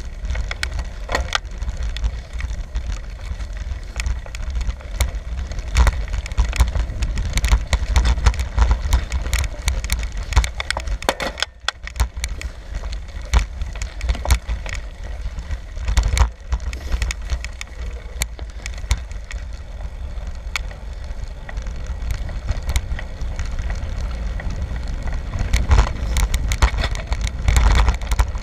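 Bicycle in motion heard from a camera riding with it: a steady low wind rumble on the microphone, broken by frequent sharp clicks and rattles from the bike.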